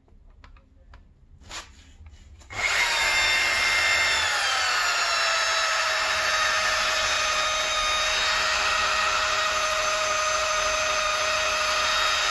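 Electric car polisher with a foam pad switched on about two and a half seconds in, its motor whine sagging a little in pitch before settling to a steady run at low speed. It is polishing 2000-grit-sanded spray-can clearcoat on a touched-up bumper scratch repair.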